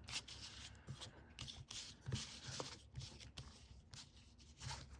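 Pokémon trading cards and their packaging being handled: faint rustling and sliding with small scrapes and light taps, a little louder near the end.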